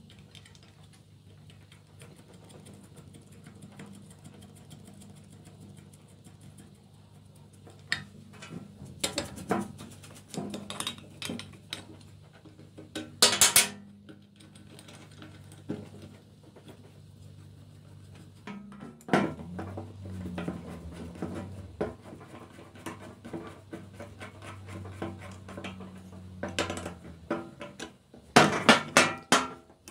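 Metal oil-pump parts and hand tools clinking and clattering as the pump is reassembled, in irregular knocks with louder clatters about halfway and near the end, over a steady low hum.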